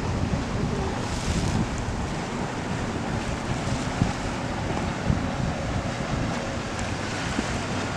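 Wind buffeting the microphone over the steady wash of waves on the shore.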